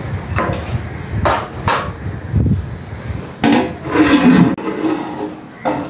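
A wooden-handled ladle knocking and scraping in a clay pot of biryani, a handful of separate knocks, then a steel plate lid clattering against the pot.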